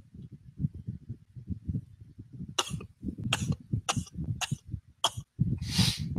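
Computer keyboard typing heard through a microphone: muffled keystrokes several a second. In the second half come five short hissy strokes about two-thirds of a second apart, then a longer breathy burst near the end.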